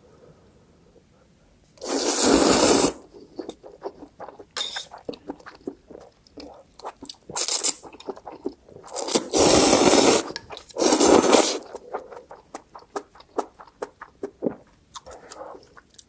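Close-miked eating of spicy instant ramen with kimchi: four loud rushing bursts, the longest about nine to ten seconds in, with many small clicks and chewing sounds between them.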